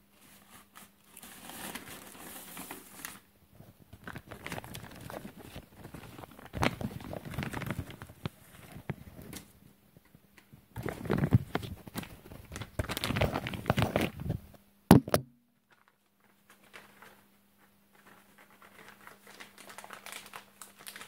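Plastic packaging crinkling and rustling in several bouts as it is handled, with a sharp knock about fifteen seconds in.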